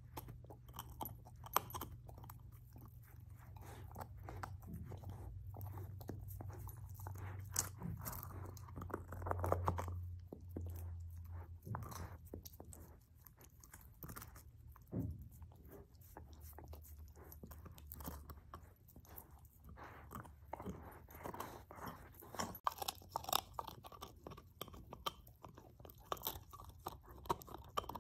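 Great Pyrenees puppy chewing on a beef rib, with irregular crunches and clicks of teeth on bone throughout. A low rumble runs underneath, loudest about a third of the way in.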